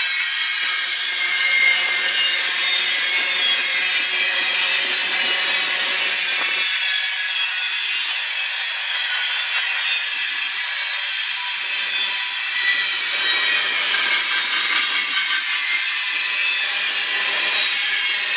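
Steel wheels of a passing freight train's covered hopper cars rolling over the rails: a steady, grinding rush with thin high squealing tones running through it.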